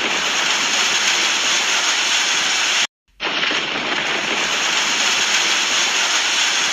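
Rushing water, a steady loud hiss like a waterfall or fast stream, broken by a sudden short gap just before halfway where one clip cuts to the next.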